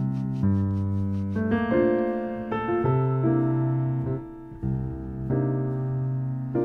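Jazz ballad recording: piano playing slow, held chords that change about once a second, with a brief quieter dip a little past the middle.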